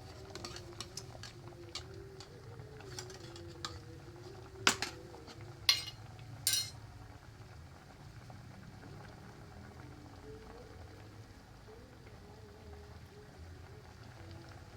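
A pot of clear vegetable soup simmering on the stove, with scattered light clicks. About four and a half to six and a half seconds in come three loud clanks of kitchen utensils against a pot.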